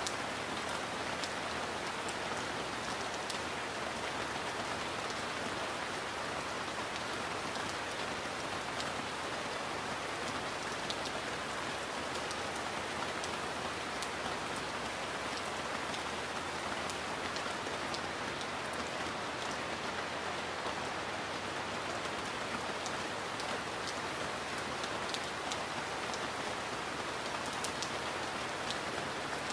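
Steady rain: an even hiss with scattered sharp ticks of drops striking.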